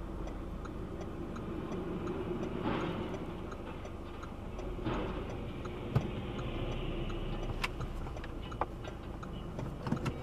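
Steady hum and road rumble inside a moving car, with a light, even ticking about three times a second. In the second half come a few sharp knocks, the loudest about six seconds in, as a semi-trailer strikes a roadside lamp post and knocks it over.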